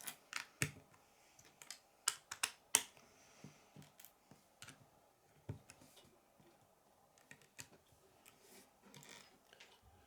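Lego bricks clicking as they are handled and snapped together. The clicks are irregular and sharp, thick in the first three seconds and sparser after that.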